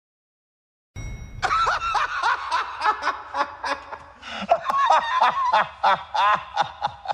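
Someone laughing in a quick run of short snickers, several a second, starting about a second in.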